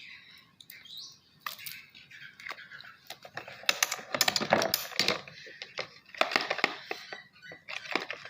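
Irregular clicks and light knocks of hard objects against a container while slime ingredients are added and handled. The clicks come thickest about halfway through.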